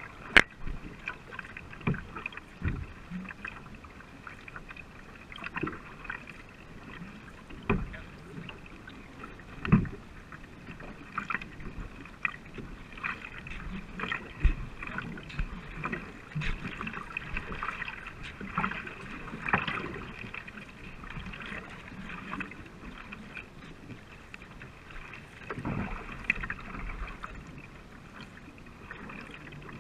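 Racing canoe paddles stroking through the water, with steady splashing and water hiss along the hull, picked up by a camera on the deck close to the water. Sharp knocks and splashes come every second or two.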